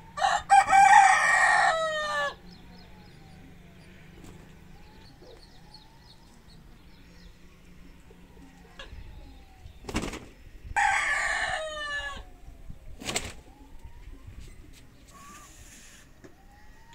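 A rooster crowing twice: a long crow right at the start and a shorter one about eleven seconds in, each trailing off in falling notes. Two sharp knocks come between the crows.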